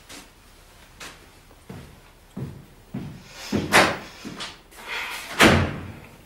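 A cupboard door and drawer being opened and shut: a few light knocks, then two loud clatters about three and a half and five and a half seconds in.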